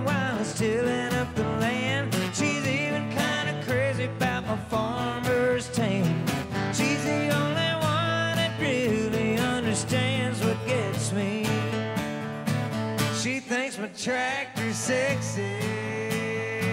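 Two acoustic guitars strumming and picking an instrumental break in a live country song.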